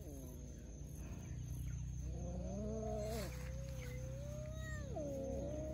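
Kittens meowing, with long drawn-out calls: one running for about three seconds from about two seconds in, and another starting near the end.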